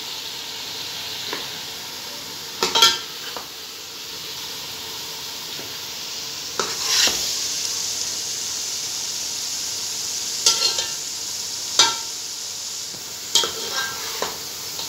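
Steel ladle scraping and clinking against an aluminium cooking pot as pieces of chicken curry are scooped out, about half a dozen times, some strokes ringing briefly. Under it, a steady hiss of the gravy sizzling in the pot.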